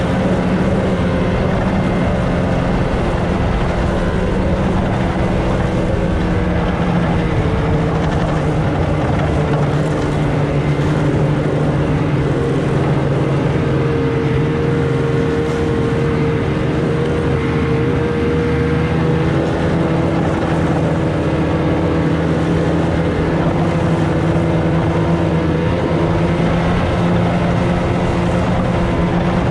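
2020 Ski-Doo Expedition Xtreme snowmobile's 850 E-TEC two-stroke engine running at a steady cruising speed under way, with a noisy rush of track and wind beneath it. The engine pitch holds steady, sagging slightly about halfway through before settling again.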